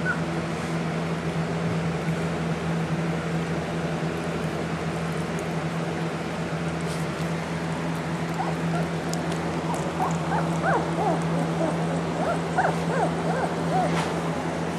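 Young puppies whimpering and yipping in short, high squeaks, mostly in the second half, with a few sharp clicks, over a steady low hum.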